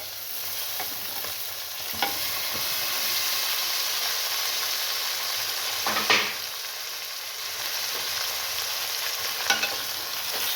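Chicken pieces sizzling as they fry in hot oil and browned onion, garlic-ginger and green-chilli masala in a karahi, the sizzle growing louder about two seconds in. A stirring spoon knocks and scrapes against the pan three times, loudest about six seconds in.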